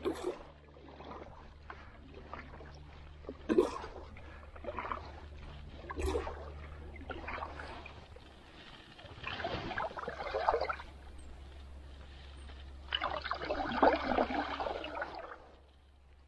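Double-bladed paddle strokes from a solo pack canoe: blades dipping and pulling through calm water with splashing and dripping, a few sharp knocks in the first seconds, and two longer swishing strokes about nine and thirteen seconds in, over a steady low rumble.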